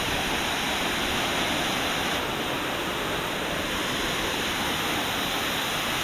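Steady rushing and splashing of a small waterfall pouring onto rocks close by.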